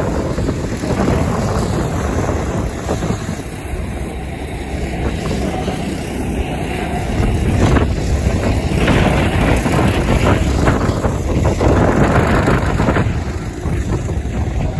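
Micro F2 stock cars' small engines running round the oval, mixed with heavy wind buffeting on the microphone. It grows louder about halfway through.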